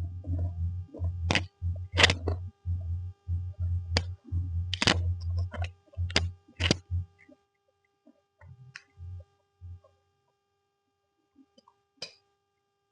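A person eating close to the microphone: a run of low chewing thumps with sharp smacking clicks, trailing off after about seven seconds into a few scattered clicks.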